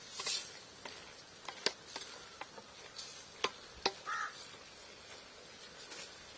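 Metal ladle stirring chicken curry in a metal pot over a wood fire, with sharp clicks and scrapes against the pot over a faint steady sizzle. One short call sounds about four seconds in.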